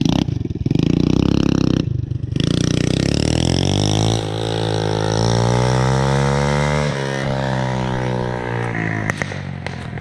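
Small 212cc single-cylinder engine running: it chugs low at first, revs up about two seconds in, holds high, then slowly winds back down over the last few seconds.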